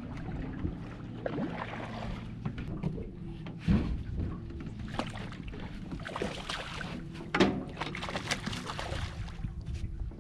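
Low wind rumble on the microphone, with two sharp knocks on the boat about four and seven seconds in, and a stretch of splashing as a hooked smallmouth bass thrashes at the surface beside the boat.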